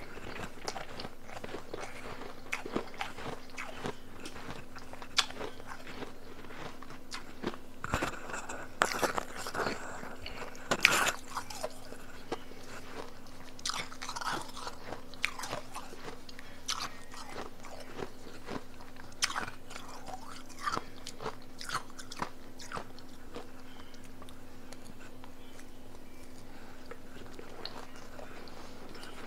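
Close-up crunching and chewing of powdery blended ice, with a metal spoon scooping it from a plastic blender cup. The crunches come thickest about a third of the way in and thin out over the last few seconds, over a steady low hum.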